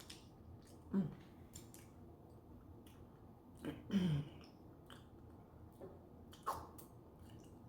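Close-up eating sounds: a person chewing a sushi hand roll, with faint mouth clicks and three short, low, falling-pitch vocal sounds near the start, the middle and near the end.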